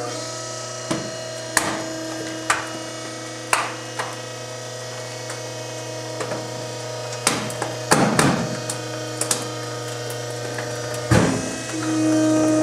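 Compactor's motor humming steadily as a space heater is crushed, its housing giving sharp cracks and snaps every second or so, with a quick cluster just past the middle. Near the end the machine's hum grows louder.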